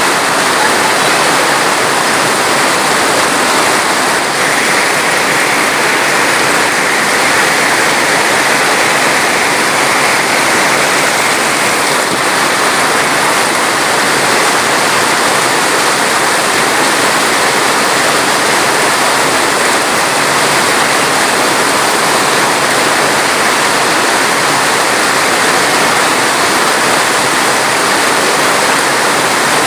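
Steady, unbroken rushing of water, an even hiss and roar with no distinct drops, voices or other events.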